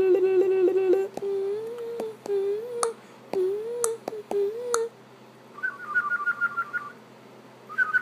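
Warbling hum on one pulsing note, then short hummed notes that swoop up and down, with a few sharp clicks. About five and a half seconds in, a high, rapid whistled trill begins, and it starts again near the end.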